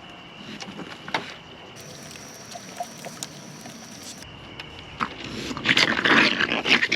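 Raccoons growling and snarling loudly in rough bursts, starting about five seconds in after faint rustling and a few light taps.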